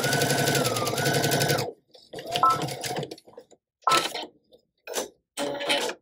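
Electric sewing machine stitching fast through folded denim: a steady run of a little under two seconds, its motor pitch dipping briefly, then several short spurts of stitching.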